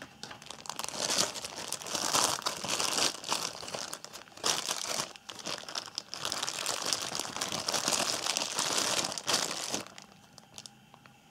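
Clear cellophane wrapping crinkling and crackling as it is handled and pulled off a caliper, dying down about a second before the end.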